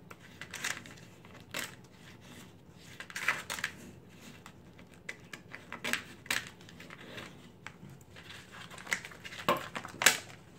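Scissors cutting across a vinyl decal sheet on its transfer film and paper backing: a series of irregular crisp snips and crinkles. The sharpest crackle comes near the end as the cut sheet is handled.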